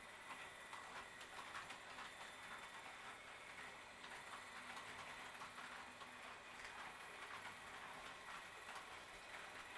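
Faint, quick ticking of a Roco HO-scale model train running along the track, its wheels clicking over rail joints and points.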